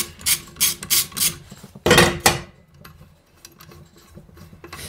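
Ratchet wrench clicking in short strokes as the primary clutch retainer bolt is backed out, with a louder metal clank about two seconds in, then fainter clicks and metal handling.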